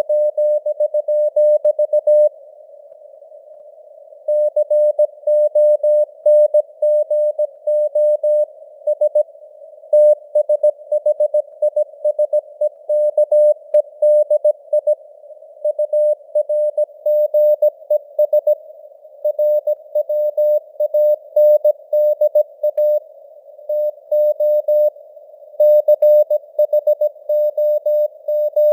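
Morse code at 17 words per minute: a single tone of about 600 Hz keyed in dots and dashes over narrow band radio hiss, a simulated CW signal whose strength fades up and down (QSB). The keying pauses for about two seconds near the start, then runs on.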